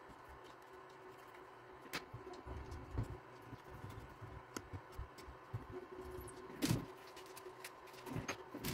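Quiet handling noises: scattered light clicks and knocks of a 3D-printed carriage, screws and tools being handled on a metal linear rail during assembly. The loudest knock comes about two-thirds of the way through.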